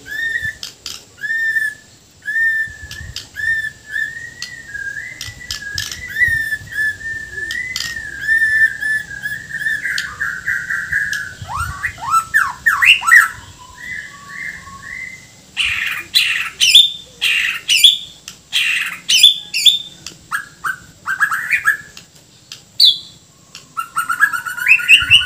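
White-rumped shama of the Bornean type (murai Borneo) in full song. It opens with a run of repeated whistled notes, about two a second, for the first ten seconds or so. It then moves into varied phrases of quick sweeping notes and louder sharp, harsh notes, the coarse calls that keepers prize in a shama's repertoire.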